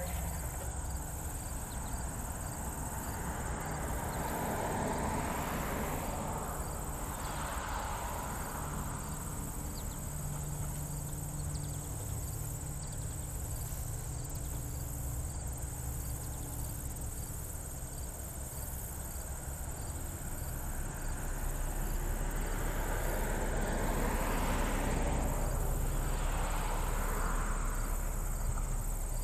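Steady high-pitched chorus of crickets over a low rumble, with two swells of rushing noise that rise and fade, about five seconds in and again near the end.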